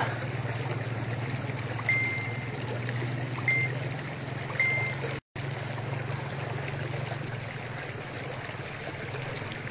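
Floodwater rushing along a flooded road, a steady rush of water over a constant low hum. Three short high tones sound between about two and five seconds in, and the audio drops out for an instant just after five seconds.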